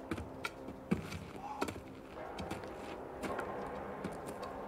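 Scattered knocks, clicks and footsteps of a group shifting about on muddy ground, over a faint steady hum.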